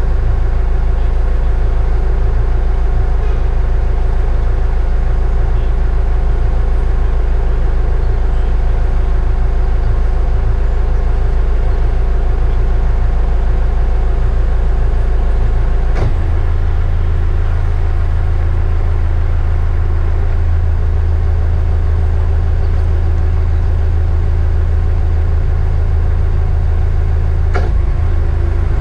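Catamaran's inboard diesel engines running slowly, a steady low drone whose pitch shifts up a little about halfway through.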